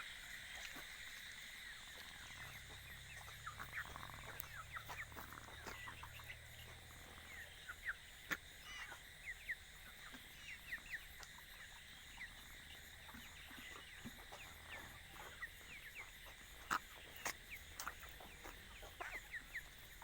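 Broiler chickens calling faintly with many short, high peeps and scattered sharp clicks. This is played as the 'ghad ghad' rattling noise of broilers, which the farmer puts down to a respiratory infection brought on by cold weather.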